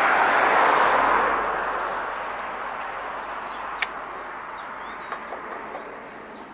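A passing road vehicle's tyre and engine noise, loudest at first and then fading away over several seconds. There is a sharp click about four seconds in and a few faint high bird chirps.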